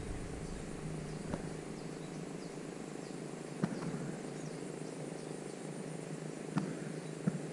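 Steady low droning hum under a thin, high, continuous insect buzz, with four faint light clicks spread through.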